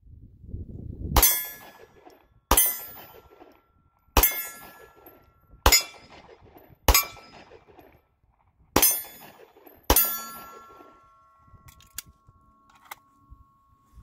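Semi-automatic pistol fired seven times at an unhurried, uneven pace, about one to two seconds between shots, each a sharp crack with a ringing tail. A few faint clicks follow after the last shot.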